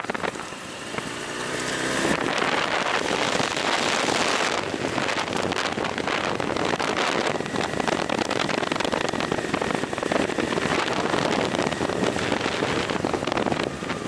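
Honda CBR929RR Fireblade's inline-four engine running as the bike rides along, with wind noise on the microphone. About a second in the sound dips, then the engine note rises as the bike picks up speed and settles into steady running.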